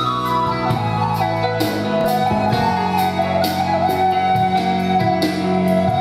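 Live ensemble music: a flute holds long, wavering melody notes over piano chords, with a drum kit keeping an even beat of drum and cymbal strokes.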